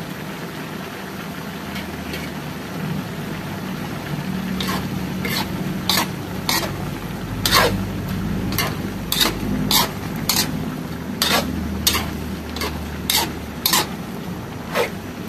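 Metal spatula stirring pork intestines in a wok. From about four seconds in, its edge scrapes and clinks against the pan about fifteen times in an uneven rhythm, over a steady low hum.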